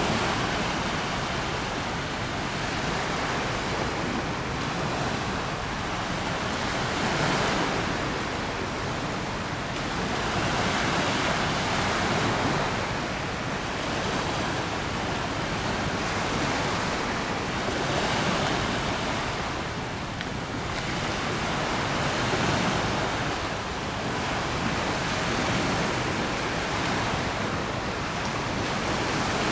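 Wind and river waves: a steady rushing noise that swells and eases every four or five seconds.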